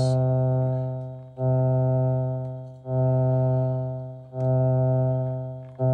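Eurorack synth voice, a Bastl Pizza oscillator gated by a Doepfer VCA under the Oxi One's trig envelope, playing the same low buzzy note over and over, about once every second and a half. Each note starts sharply and fades slowly until the next one begins.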